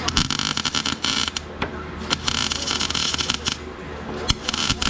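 Electric arc welder crackling and sputtering in three short runs with brief gaps, laying weld on the mower deck's steel around the rotted pulley mount.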